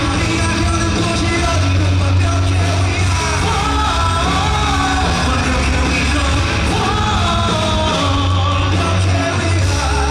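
Live rock band playing with a sung vocal line over heavy bass, drums and guitars, heard from the audience at a concert.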